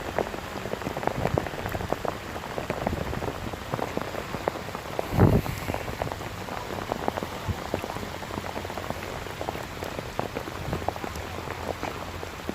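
Steady rain falling, with many separate drops hitting close to the microphone and one louder thump about five seconds in.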